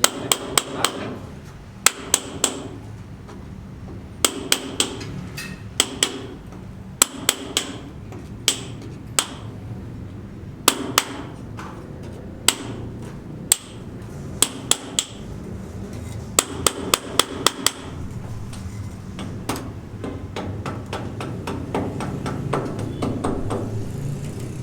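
Hammer blows on a building site, struck in quick runs of two to five with short pauses between, each blow leaving a brief ringing tone. The blows stop about three quarters of the way through, and a low rumble grows louder near the end.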